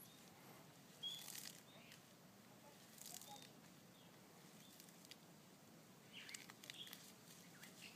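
Galapagos giant tortoise biting and tearing at a bunch of fresh leaves: faint crisp leafy rustles and crunches in three short bouts, about one, three and six seconds in.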